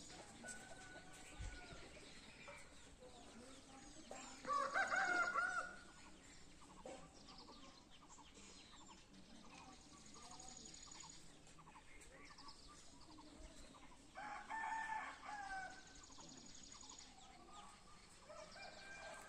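A rooster crowing twice, each crow about a second and a half long and about ten seconds apart, with faint high chirping of small birds between.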